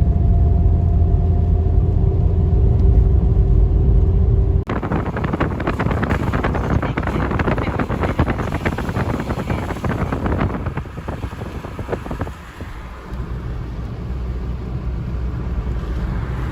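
Low road rumble and a steady hum inside a moving car. About four and a half seconds in it cuts abruptly to uneven rushing noise full of irregular crackles, like wind buffeting the microphone.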